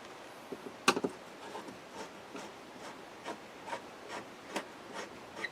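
A screw being turned in by hand with a screwdriver: one sharp click about a second in, then faint ticks and rubbing at about two to three a second.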